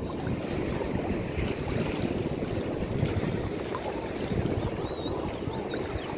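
Steady wind buffeting the microphone over small waves lapping at the water's edge; the RC boat's motor does not stand out from it. A few faint high wavering chirps come in about four seconds in.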